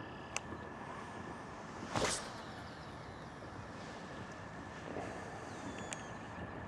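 Steady faint outdoor background noise with a sharp click early and, about two seconds in, one brief loud swish.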